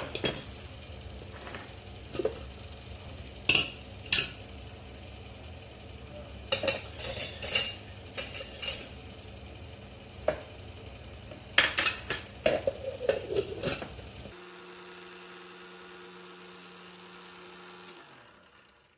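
Clinks and knocks of a blender jar and utensils being handled. Then, about three-quarters of the way through, a mixer-grinder motor starts a steady hum that winds down in pitch and stops near the end as it is switched off.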